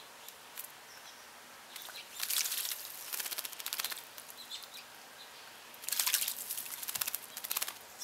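Small bird bathing in a bird bath, flicking its wings in the water with rapid splashing. The splashing comes in two bouts of about two seconds each, one about two seconds in and one about six seconds in.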